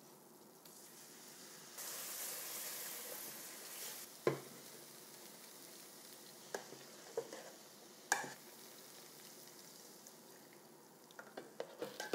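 Milk poured into a hot butter-and-flour roux sizzles for a couple of seconds, starting about two seconds in. A metal spoon then stirs the thickening mixture, clinking against the pot four times.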